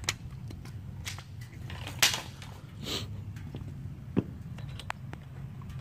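A handful of short sharp metal clicks and taps as a small pressure-washer nozzle tip is handled and fitted into a test-stand pipe, the loudest about two seconds in, over a steady low hum.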